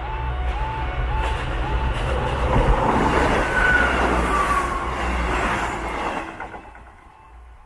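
A Class 158 diesel multiple unit passes close by, its engine drone and running noise building over the first few seconds, loudest in the middle and fading away after about six seconds. Under it, the level crossing's miniature-stop-light warning alarm keeps sounding, a two-tone warble repeating about twice a second.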